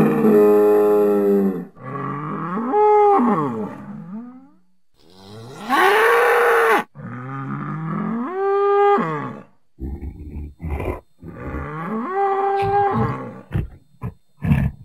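Bull mooing in a series of about five long calls, each a second or two long and rising then falling in pitch, with short pauses between. Several short sharp noises come in the second half.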